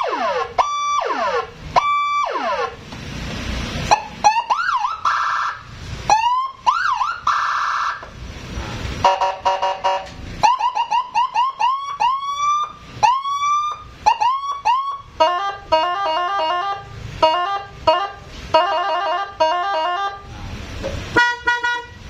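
Electronic police-escort-style siren on a Honda PCX scooter, switched through its tones by push buttons: repeated falling wails first, then short rising whoops, then fast warbling multi-note patterns and a steady chord near the end, each sounded in short blasts.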